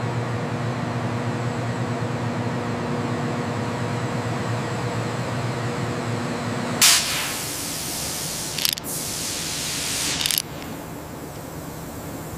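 Steady hum of industrial machinery with several low held tones. About seven seconds in the hum gives way to loud bursts of hissing, a short one near nine seconds, and the hissing stops about ten seconds in.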